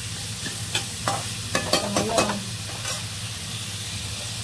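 A perforated steel skimmer clatters and scrapes against a steel kadai as tomatoes and onions are stirred, frying in oil with a steady sizzle. The stirring stops about three seconds in, leaving only the sizzle.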